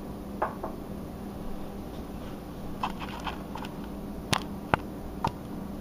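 A glass mixing bowl set down on a stone countertop with a soft knock about half a second in, then scattered light clicks and three sharper clicks near the end, over a low steady room hum.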